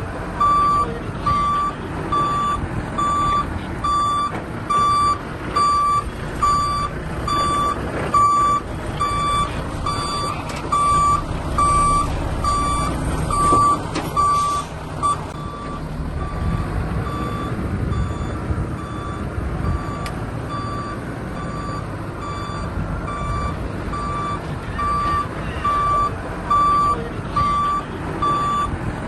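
A heavy vehicle's reversing alarm beeping steadily, about one and a half beeps a second, over a diesel engine's low rumble. The beeps fade for a few seconds midway, then come back louder.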